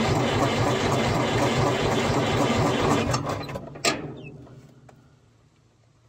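Cold Detroit Diesel 2-71 two-stroke diesel being cranked over with fuel on, chugging in an even rhythm without catching. The cranking winds down about three and a half seconds in, with a sharp click near four seconds, and the sound fades away.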